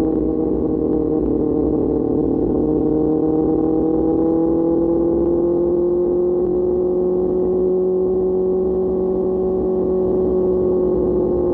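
QJ Motor SRK600 inline-four through an SC-Project exhaust, held at a steady cruise: its pitch rises slowly over the first half, then holds level.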